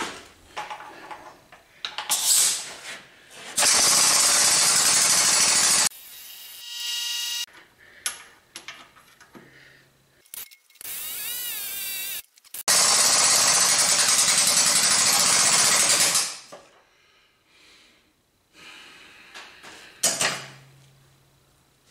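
Air-driven hydraulic pump of a shop press running in two loud hissing bursts, about two seconds and then about three and a half seconds long, with a wavering whine between them. The press is pushing a heated roller bearing onto a compressor crankshaft. Clicks and knocks of metal parts being handled come in between.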